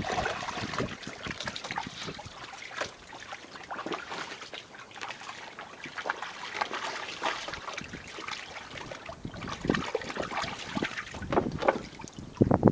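Water splashing irregularly in a shallow kiddie pool as a Staffordshire-Labrador cross puppy plays in it, with louder splashes near the end.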